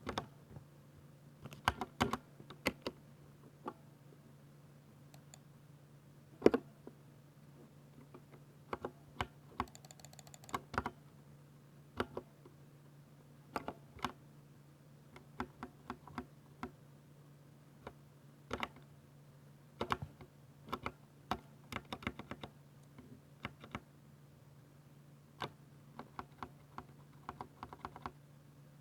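Typing on a Ducky 60% mechanical keyboard with silver switches: irregular keystrokes, some single and some in quick flurries, with a steady low hum underneath.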